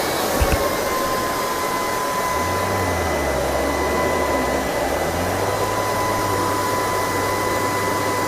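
LG R9 robot vacuum running, its suction fan giving a steady whine over a rushing noise, with a low hum that drops out and returns partway through. A brief knock sounds about half a second in.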